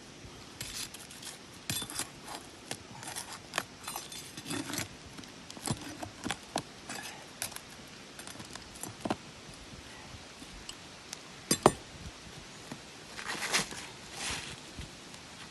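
Irregular clicks, scrapes and clinks of a brittle asphalt shingle being pried and worked loose from the roof, with one sharp snap about twelve seconds in and a longer scraping stretch near the end.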